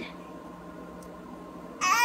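A quiet stretch with a faint hum, then near the end a toddler bursts into a loud, steady, high-pitched crying wail.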